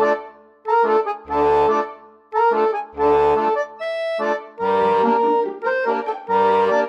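Background music: a lively instrumental tune in short, repeated phrases about a second apart, with a deep bass note under most phrases.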